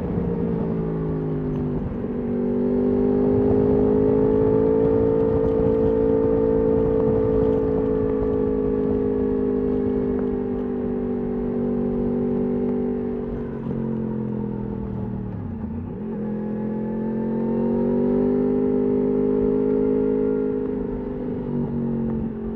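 Yamaha R1 RN22's crossplane inline-four running through an Akrapovič exhaust under way, holding a steady note with brief dips in pitch near the start and near the end. In the middle the revs fall away sharply for a couple of seconds, then climb again.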